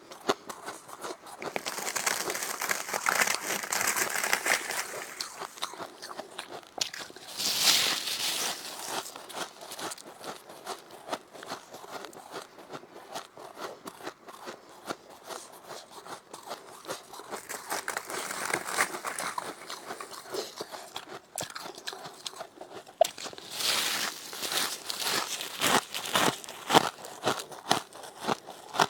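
Powdery freezer frost being bitten and chewed close to the microphone: dense, crisp crunching in repeated bites, with the loudest bites about two to five seconds in, around eight seconds and again near the end.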